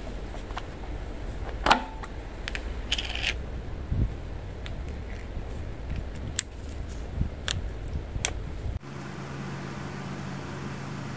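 Scattered clicks, taps and knocks over a low rumble. About nine seconds in this cuts abruptly to a steady machine hum with an even hiss, a white-noise drone.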